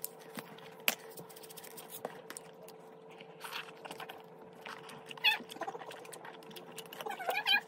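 A pet whining in high, wavering cries, twice: about five seconds in and again near the end. Under it are scattered small clicks of food being handled and eaten, and a steady faint hum.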